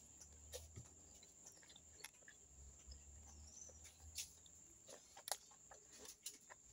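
Near silence, broken by scattered faint clicks and smacks of close-up chewing.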